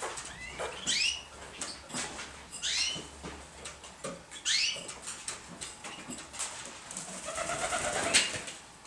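Pigeons calling in a loft: three high squeaks that rise sharply, about two seconds apart, then a rapid pulsed lower call near the end.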